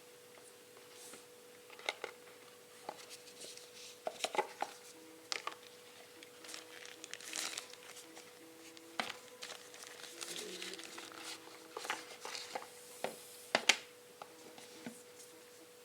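Close-up handling sounds of a phone and its packaging: scattered light taps and clicks with bits of plastic crinkling, over a faint steady tone.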